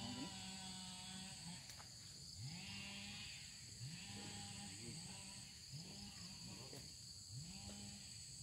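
Frogs calling in a repeated series. Each call is short and low, rising and then levelling off, about one every second and a half, over a steady high-pitched trill of night insects.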